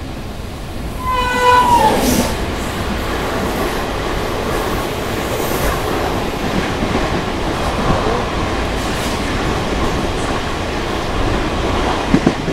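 A train horn sounds briefly about a second in, its pitch sliding down at the end, then the steady rumble and clatter of the Sabari Express's coaches passing close alongside a moving passenger train.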